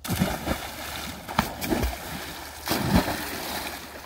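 Children jumping and diving into a pond one after another: water splashing, with several big splashes, the loudest about three seconds in.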